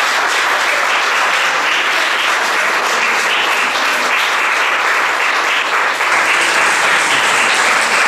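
Audience applauding steadily: many people clapping at once in a small hall.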